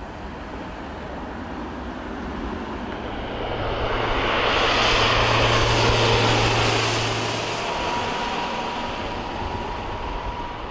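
A Saab 340B twin turboprop passing low overhead on landing approach. Its propeller drone and engine noise swell to a loud peak about halfway through, then fade, leaving a thin steady whine as it moves away.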